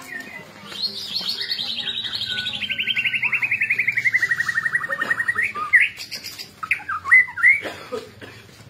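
White-rumped shama (murai batu) singing: a long, rapid trill that starts high about a second in and slides slowly down in pitch for some four seconds, followed by several short, loud whistled notes and swoops.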